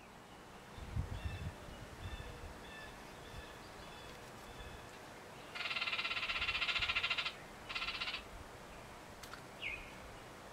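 A loud, rapid rattling trill lasting nearly two seconds, then a second, shorter one, over faint repeated chirps in the background.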